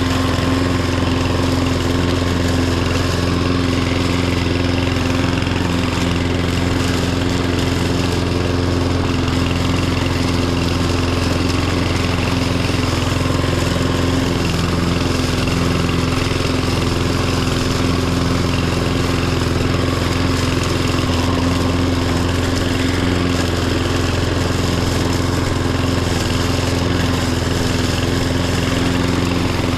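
Lawn tractor (riding mower) engine running at a steady, unchanging speed while mowing.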